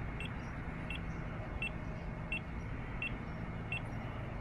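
A short, high electronic beep repeating about every 0.7 seconds, six times or so, over steady low background noise: the FPV goggles' low-battery warning.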